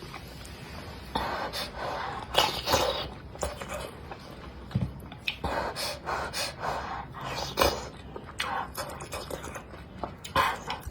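A person eating close to the microphone: irregular chewing and mouth noises, with audible breaths in and out between mouthfuls.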